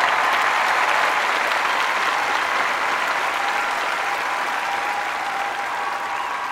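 Audience applause after a performance, a dense even clapping that slowly fades.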